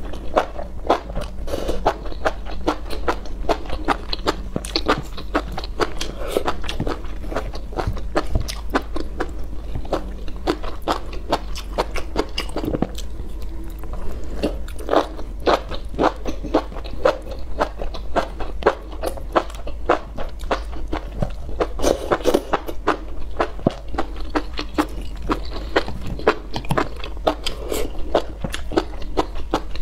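Close-miked eating sounds: biting, chewing and crunching, a dense, uneven stream of short wet clicks and smacks.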